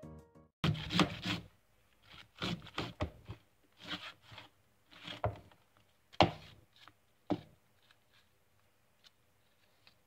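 Cauliflower being grated on a flat stainless-steel hand grater into a bowl: a run of short rasping strokes about a second apart, with two sharper knocks after about six seconds, the loudest sounds, then only faint scraping near the end.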